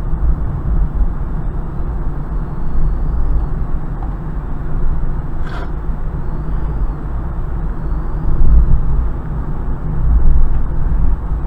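Steady low road and engine rumble inside a moving car's cabin, with a single short click about five and a half seconds in.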